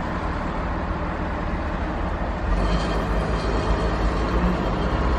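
Boat engine running steadily: an even low drone with a hiss over it.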